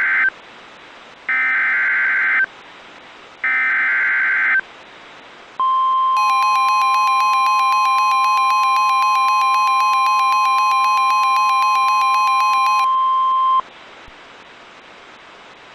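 NOAA Weather Radio SAME alert header: two more one-second bursts of warbling digital data after the first ends as it opens, three in all. Then the 1050 Hz warning alarm tone is held steady for about eight seconds, with a rapidly pulsing buzzy tone layered over most of it. Together they signal the start of a Winter Storm Warning broadcast.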